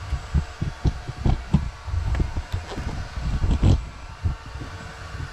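Irregular thumps and knocks, the handling noise of someone moving about and shifting things in a small trailer; the loudest bump comes a little after three and a half seconds.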